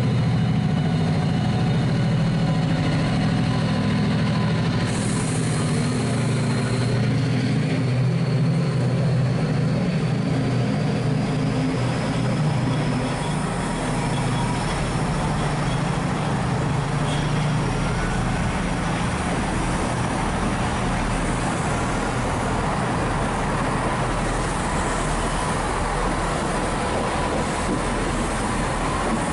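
Class 68 diesel locomotive pulling away under power: a deep, steady engine drone with a faint high whine that rises slowly in pitch. After about halfway the drone fades, and the steady rolling noise of the coaches' wheels on the rails takes over.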